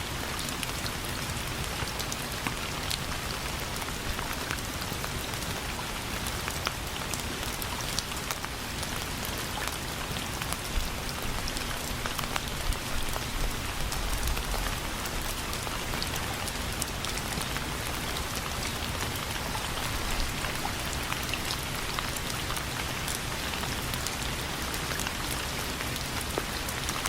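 Steady rain falling on a surface, an even hiss dotted with many small sharp drop ticks.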